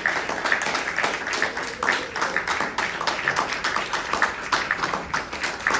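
Audience applauding: many hands clapping irregularly.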